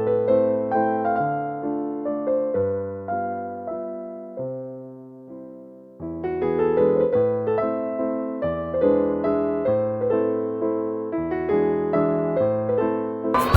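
Background music: a soft piano or electric piano piece, playing gentle sustained chords and a melody. Around the middle it thins out and fades briefly before the playing picks up again about six seconds in.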